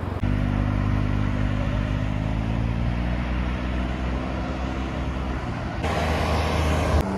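Can-Am Ryker 900's three-cylinder engine running steadily, its pitch sagging slightly in the middle; a louder rushing noise joins near the end.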